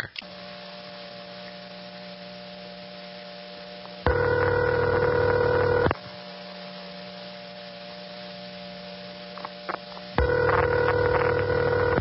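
Crossbar 5 ringback tone heard over a telephone line: two rings about 2 seconds long, the first about 4 seconds in and the next about 6 seconds after it, with a steady low tone humming in the background between them. A few faint line clicks come shortly before the second ring.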